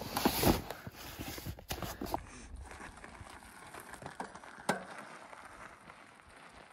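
Rustling and knocking of a game bag being pushed into an e-bike's saddle bag for about two seconds. Then a faint rolling noise from the loaded e-bike riding on dirt, with one sharp click partway through.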